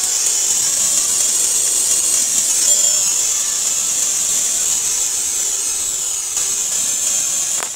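A loud, steady hiss, strongest high up, that cuts off suddenly near the end.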